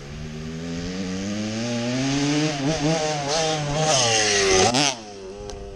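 Two-stroke Kawasaki KDX80 dirt bike accelerating toward a jump, its engine revving steadily higher and louder. About four and a half seconds in, the revs drop suddenly and the engine settles to a lower, quieter note.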